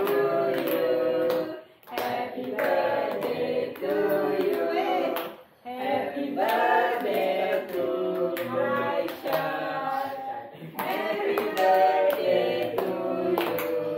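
A small family group sings a birthday song together, clapping along in time, with two short breaks between verses.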